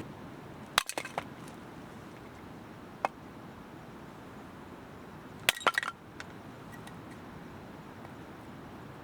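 A few sharp clinks and clatters of hard objects being handled: a quick cluster about a second in, a single click around three seconds, and another cluster around five and a half seconds, over a faint steady background.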